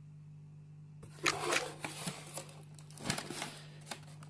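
Quiet for about a second, then a cardboard box with crumpled brown paper packing being handled: repeated rustling and scraping of the cardboard, with a few light knocks.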